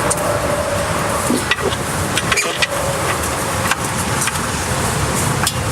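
Steady traffic-like vehicle hum with a faint steady tone, and a few scattered light clicks as a wrench is worked on the oil pan drain bolt.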